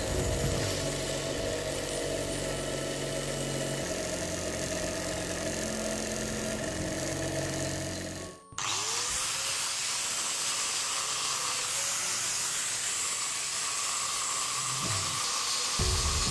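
Flexible-shaft rotary tool running a small wire wheel brush, scrubbing dirt and corrosion off a cast aluminium waffle pan: a steady motor hum with the bristles scratching against the metal. The sound cuts out for a moment about halfway and comes back as a brighter, hissier scratching. Just before the end a power sander with a sanding pad takes over.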